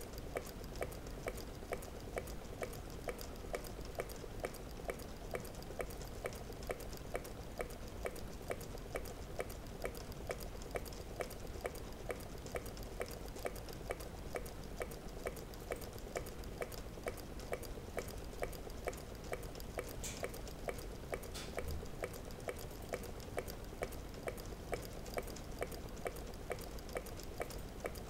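Meccano-built Stirling engine running steadily, its moving parts clicking in an even, unbroken rhythm, the louder clicks a little under twice a second.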